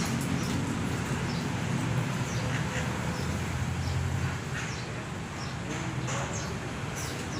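Caged birds giving short, high chirps again and again over a low, steady hum. Near the end, low gliding calls start up.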